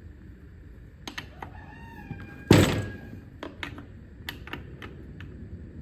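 Scattered clicks and knocks of hand tools working on a Stihl 024 chainsaw as the bar nuts are loosened to take off the bar and chain, with one loud thunk about two and a half seconds in. A rooster crows faintly just before the thunk.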